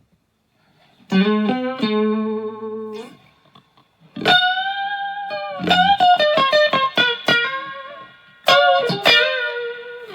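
Electric guitar playing lead phrases of single notes, with held notes bent in pitch and quick runs, separated by short pauses.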